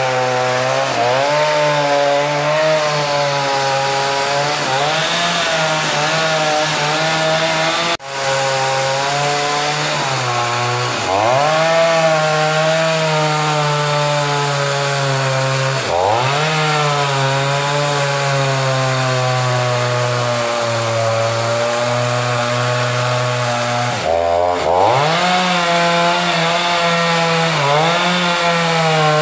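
Petrol two-stroke chainsaw running hard as it rips lengthwise through a log to make a beam. Its pitch dips and recovers a few times as it works through the cut.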